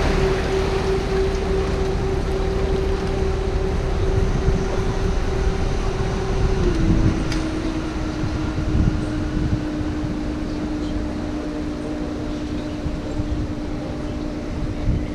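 Canal boat's motor running with a steady drone and low rumble; its tone steps down slightly in pitch about seven seconds in.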